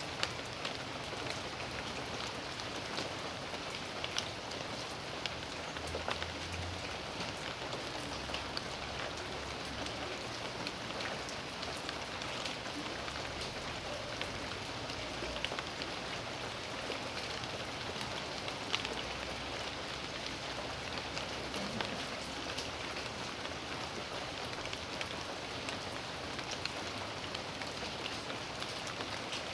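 Steady rain falling on the ground and surfaces of a yard, an even hiss with many scattered sharper drop ticks.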